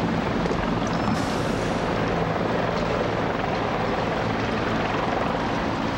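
Helicopter engine and rotor drone, steady and loud, with a low hum underneath.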